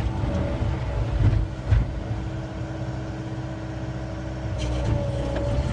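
A John Deere 333E skid steer's diesel engine running steadily under hydraulic load, with a held whine, as its splitter drives a big hardwood round through a 12-way wedge. There are a couple of sharp knocks about a second and a half in.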